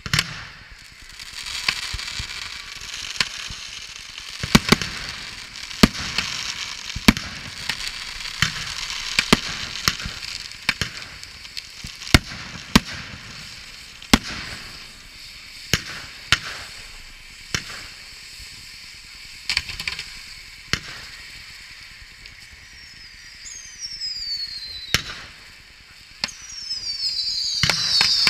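Fireworks in a bonfire effigy going off: a steady high hiss from the blazing fountain, broken by sharp bangs and cracks every second or so. Near the end, whistling fireworks shriek with falling pitch and grow loud as sparks shoot upward.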